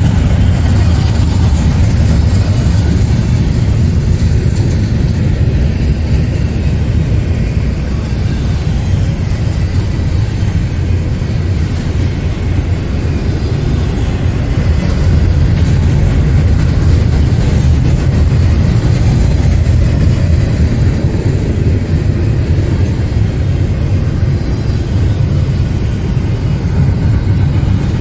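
Double-stack intermodal container train rolling past at close range: a steady, deep rumble of the well cars' steel wheels on the rails.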